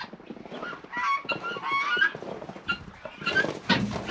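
Peahens giving a few short, honking calls, followed near the end by a clattering rustle.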